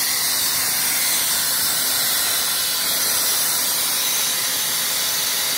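Ingersoll Rand 18 kW air-cooled screw compressor running with a steady, loud hiss.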